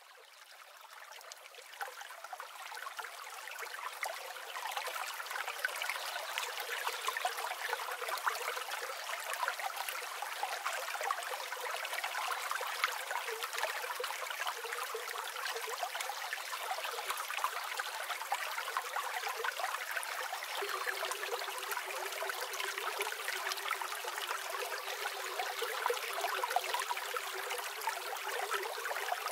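A steady, fine-grained trickling water sound with no bass, fading in over the first few seconds.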